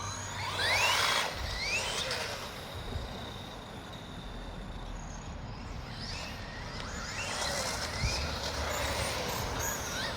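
Electric motor of a Traxxas 2WD radio-controlled truck whining as it accelerates: several rising whines about half a second in and near two seconds, then more around seven to eight seconds, over a steady rushing noise.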